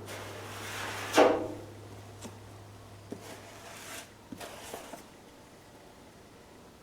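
Hand work with body filler on a car body panel: a scraping swipe that swells to a loud peak about a second in, followed by a few light knocks and taps. A low steady hum stops about four seconds in.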